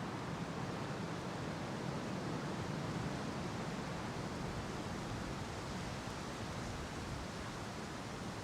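Wind blowing through the bare trees of a city park in winter, a steady low rushing that swells a little a few seconds in, with the distant hum of city traffic mixed in.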